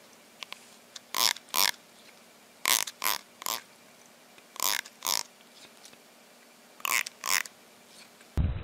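Domestic cat making a series of short breathy sounds, mostly in pairs, with short pauses between them.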